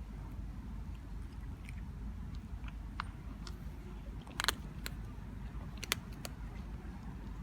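A cat eating, chewing with scattered small wet clicks, two sharper clicks about four and a half and six seconds in, over a steady low rumble.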